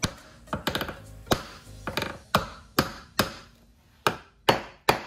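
Hammer striking a metal bracket on a Corvette's wheelhouse panel, about ten sharp blows, unevenly spaced at first and then coming steadily at about two a second near the end. The blows are meant to crack loose the brittle adhesive that bonds the panel.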